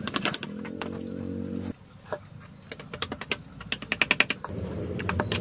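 Metal trowel tapping and scraping against stones and wet cement mortar: a quick, irregular run of sharp clicks and knocks. A low steady hum sounds for the first second and a half and comes back near the end.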